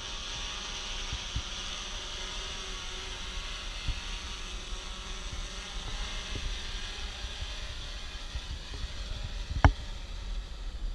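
S550 hexacopter's six electric motors and propellers humming steadily as it comes down from a hover, the hum fading as it settles. A single sharp knock about ten seconds in, as it touches down on the grass.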